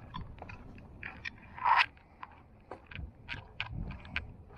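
Footsteps along wet wooden pier boards, with irregular clicks and crackles and one louder crunch about two seconds in.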